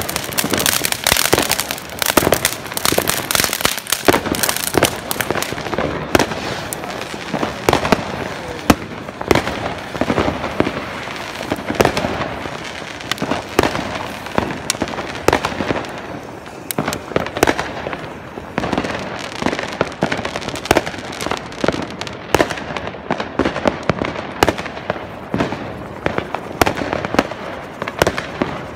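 Consumer fireworks going off close by: a ground fountain spraying sparks amid a dense run of rapid crackles, pops and sharp bangs from firecrackers.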